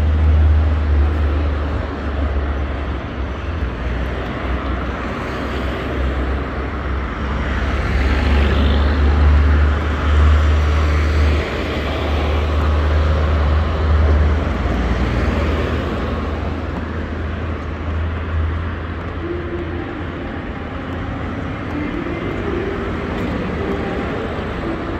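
Traffic going by on a city street, under a heavy low rumble that eases off about three quarters of the way through.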